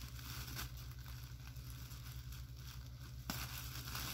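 Faint rustling and crinkling of a shopping bag as skeins of yarn are pulled out of it, with a small click near the end.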